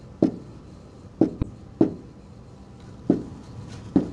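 Pen tip knocking against a SMART Board interactive whiteboard as words are written on it: about six short, sharp taps, irregularly spaced.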